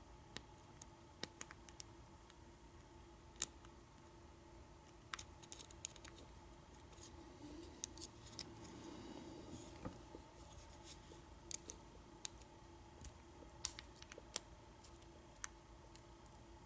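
American 1100 padlock being single-pin picked with a hook pick and heavy tension: scattered, irregular small metallic clicks and ticks as the pick works the pins, with light handling rustle around the middle.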